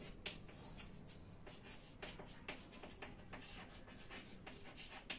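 Chalk writing on a chalkboard: faint, quick scratching strokes and taps, several a second, as a line of text is written.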